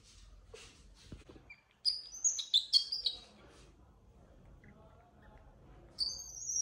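Baby monkey squeaking: a quick run of high, chirpy squeaks that jump between pitches about two seconds in, then one more high call near the end that slides down in pitch. Soft rustling of bedding comes before the squeaks.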